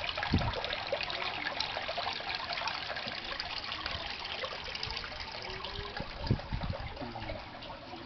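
Water from a DIY overhead aquarium filter pouring in several streams back into the tank, a steady splashing trickle. A low thud sounds just after the start and another about six seconds in.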